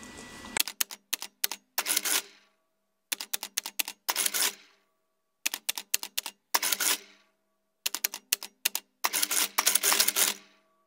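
Mechanical clicking sound effect: clusters of rapid sharp clicks alternating with longer rattling bursts, in the manner of a typewriter, repeated several times over the closing with dead silence between the groups.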